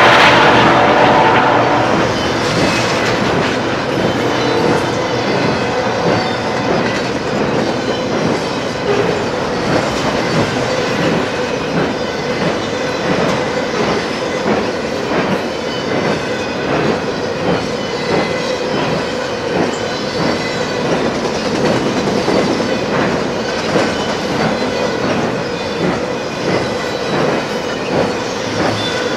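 Double-stack intermodal freight train rolling past: a steady rumble of steel wheels on rail with continual clickety-clack over the rail joints. It opens with the tail of a locomotive horn blast, which fades away in the first second or two.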